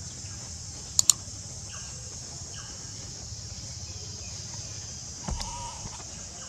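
Steady high-pitched drone of an insect chorus, broken by two sharp clicks about a second in and a knock a little after five seconds.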